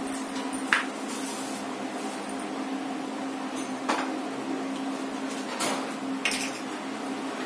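Dishes and utensils clinking and knocking as they are handled at a kitchen counter: four short sharp knocks, about a second in, around four seconds and twice near six seconds, over a steady low hum.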